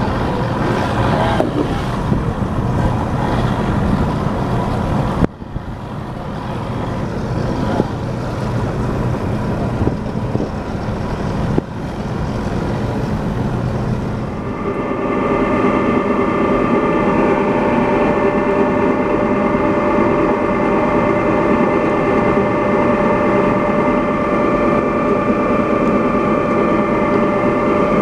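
Heavy ship machinery rumble. About halfway through, a steady whining motor drone with several held pitches comes in and carries on.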